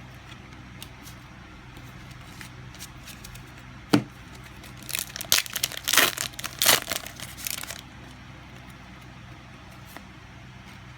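Trading-card booster pack's foil wrapper crinkling and tearing open: a sharp click about four seconds in, then a few seconds of irregular crinkling and ripping.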